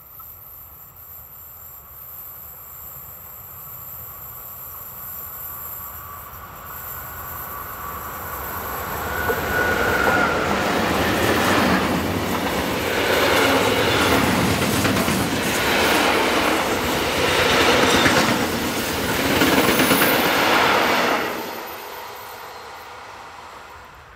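Intermodal container freight train passing close by. The wheel and wagon noise builds over about ten seconds, stays loud with a rhythmic clatter of wheels, then falls away quickly about three seconds before the end. There is a brief wheel squeal as it gets loud.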